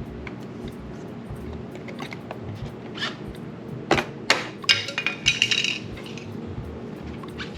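Sharp plastic clicks and snaps, bunched into a quick cluster around the middle, as a pick and pry tool work the car's rear door trim pieces loose and their clips pop free. Quiet background music plays underneath.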